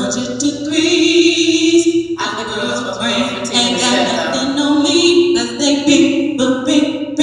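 Unaccompanied vocal warm-up: wordless singing in long held notes, with short breaks between phrases.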